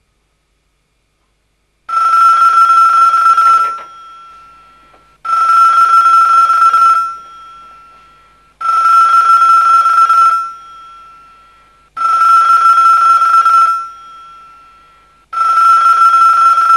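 Landline telephone bell ringing five times, starting about two seconds in. Each ring is a rattling bell tone of just under two seconds, with a short fading tail, and the rings come about three and a half seconds apart.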